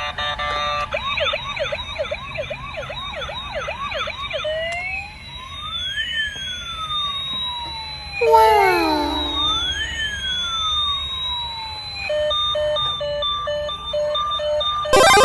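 Toy ambulance's electronic siren sound effect, cycling through patterns. First comes a fast repeating yelp, then a slow rising-and-falling wail, interrupted about eight seconds in by a brief loud burst with falling tones. Near the end it changes to a pulsing beep.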